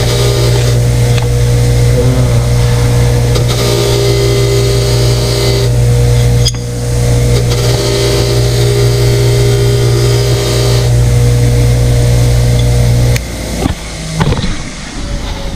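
A 1/2-horsepower 6-inch bench grinder running with a steady hum, with a vise part pressed against its wire wheel in three spells of hissy scrubbing that strip the old grease and crud. The motor is switched off near the end and the hum falls away.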